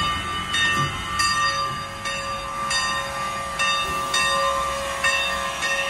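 Steam locomotive bell on Sierra Railway No. 28 ringing steadily as the engine rolls past in reverse, struck about eight times, each stroke ringing on, over a steady hiss of escaping steam.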